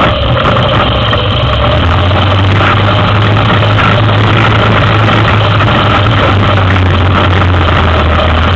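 Yamaha Big Bear 400 ATV's single-cylinder four-stroke engine running steadily with a constant low hum as it is ridden.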